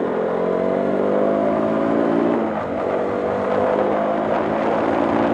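Motorcycle engine running while riding, its pitch rising steadily; the pitch drops about two and a half seconds in, then climbs again.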